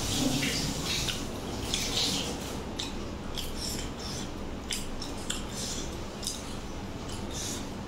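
Eating by hand from a stainless steel plate: fingers scraping and tapping on the steel while gathering food, heard as a string of short, crisp clicks and scrapes.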